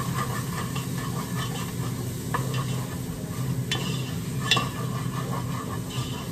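Wooden spoon stirring onions frying in oil in a pot, with steady sizzling and three sharp knocks of the spoon against the pot, the last the loudest. The steady hum of an air fryer running lies beneath.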